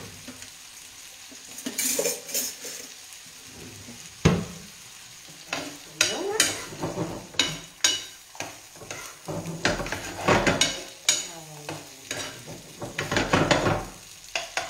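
Potato gnocchi being stirred in a frying pan of simmering sauce: a utensil scrapes and knocks against the pan in irregular sharp clacks over a steady sizzle.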